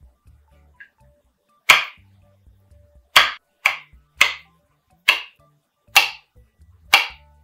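Kitchen knife chopping through soaked ladyfingers and striking a wooden cutting board: seven sharp knocks spaced unevenly, about half a second to a second apart.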